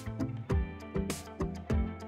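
Background music: an instrumental track with a steady beat.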